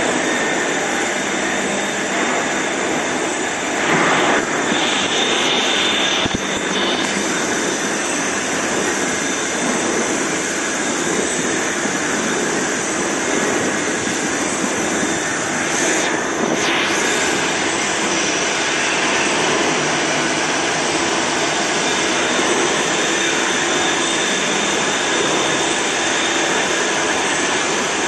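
CNC vertical milling machine cutting a die opening in an aluminium-extrusion die blank: the spindle and cutter run with coolant spraying on the work, a steady loud machining noise.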